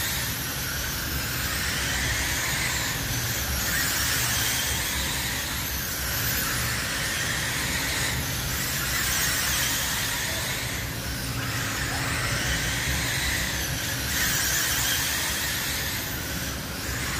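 Radio-controlled midget race cars' electric motors whining high, swelling and fading as the pack laps past every three to four seconds.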